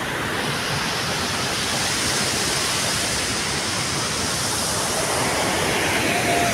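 Steady roar of muddy floodwater rushing across and over a storm-broken road.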